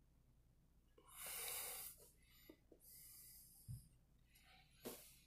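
Near silence broken by two audible breaths of about a second each close to the microphone, then a soft low bump and a sharp click.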